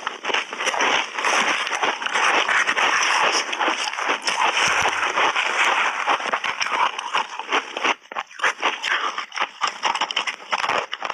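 A person crunching and chewing mouthfuls of shaved ice, close-miked: dense, continuous cracking crunches, thinning to separate crunches from about eight seconds in.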